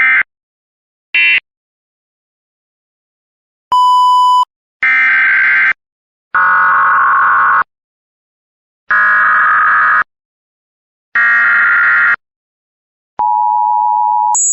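Emergency Alert System digital signalling: three short end-of-message data bursts about a second apart, a brief beep, then four longer data bursts of the next alert's SAME header. About 13 seconds in, the steady two-tone attention signal begins.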